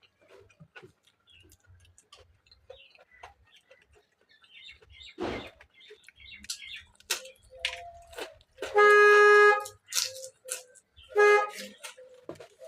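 Close-up eating sounds, wet mouth smacks and chewing clicks, over the whole stretch. A vehicle horn honks twice, a long blast about nine seconds in and a short one about two seconds later; the horn blasts are the loudest sounds.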